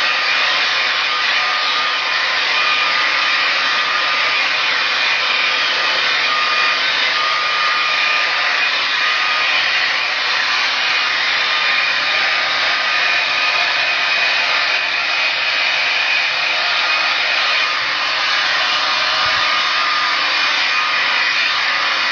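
Handheld hair dryer blowing steadily, an even rush of air with a faint steady whine.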